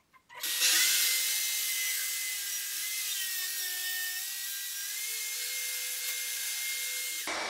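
Track saw (plunge-cut circular saw) running along its guide rail and cutting through the glued-up oak tabletop: a steady high whine that starts about half a second in, sags slightly in pitch midway under the load of the cut, and cuts off abruptly just before the end.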